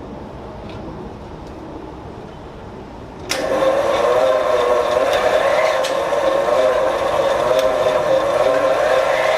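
Electric motor of a belt-driven lathe switched on about three seconds in, then running loudly with a steady, slightly wavering whine. Before it starts there is only a low steady background hum with a few faint clicks.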